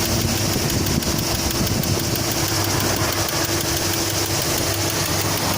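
Great Wall Safe SUV engine idling steadily with a rhythmic knock running through it, the engine knock it is being recorded for.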